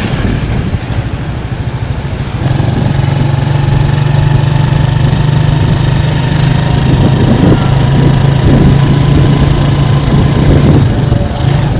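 Engine of a moving vehicle running at a steady speed, its low, even hum getting louder about two and a half seconds in, over road and wind noise.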